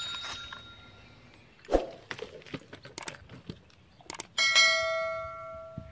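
Knocks and clicks of handling, then about four seconds in a piece of metal is struck and rings with a clear bell-like tone that fades over about a second and a half.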